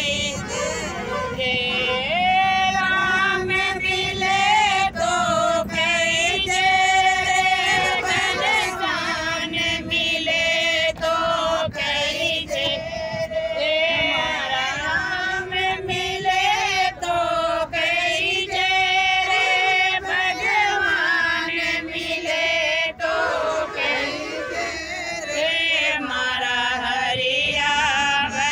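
A group of women singing a devotional folk song (bhajan) together, in long held, wavering notes.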